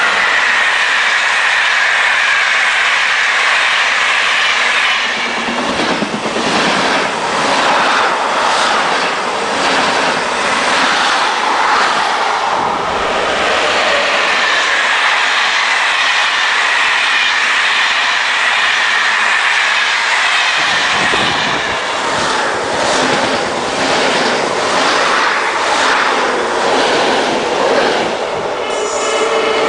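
Electric trains passing close by at speed: continuous wheel and rail noise with a high steady whine at times, and two long stretches of rapid clickety-clack as the wheels run over rail joints.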